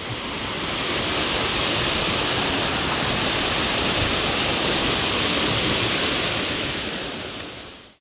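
Mountain stream running: a steady rush of water that fades out near the end.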